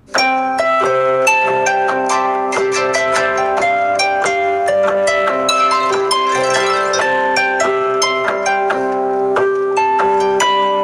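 A stock Samsung Galaxy Note 5 ringtone playing: a busy melody of quick plucked notes over a steady held note.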